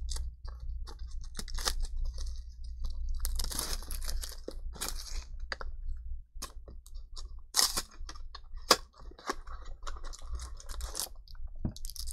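Clear plastic shrink wrap being torn and peeled off a small cardboard box, crinkling in uneven bursts, with sharp clicks and taps from the box being handled.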